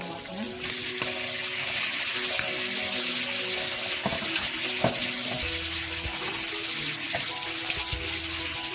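Shrimp and chopped tomatoes sizzling in butter in a frying pan, the sizzle growing louder about half a second in as the tomatoes hit the hot pan. A wooden spatula stirs through them and knocks against the pan a few times.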